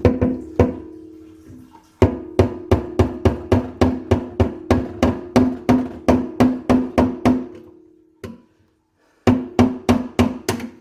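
Hammer striking a screwdriver braced in the notch of a kitchen sink strainer basket's lock ring, hammering the corroded ring loose; a long run of sharp metallic strikes about three or four a second, each leaving a low ringing tone. After a short pause a few more strikes come near the end.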